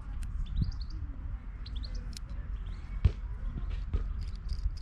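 Small birds chirping in short rising chirps, a few quick series of them, over a steady low rumble. A sharp knock about three seconds in.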